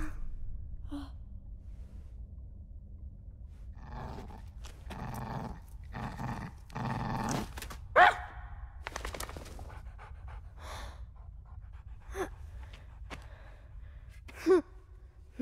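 Dogs sniffing and panting in quick breathy bursts, then a short loud whine about halfway through and brief whimpers near the end.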